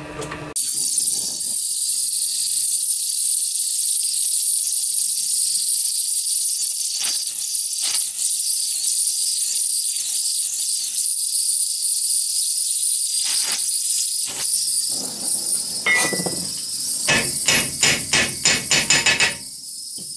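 Gas torch flame hissing steadily as it heats a steel strip held in a vise, with a few single knocks. Near the end comes a quick run of hammer blows, bending the heated strip over at 90 degrees.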